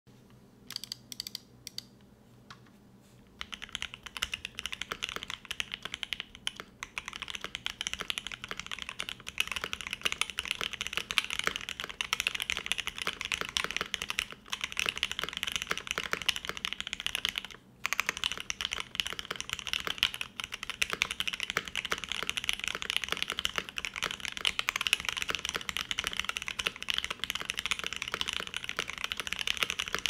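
Typing on a Mode Eighty gasket-mounted mechanical keyboard with Alpaca linear switches, a brass plate, a poron PCB layer and GMK keycaps. A few separate keystrokes come first, then steady fast typing, with two brief pauses about halfway through.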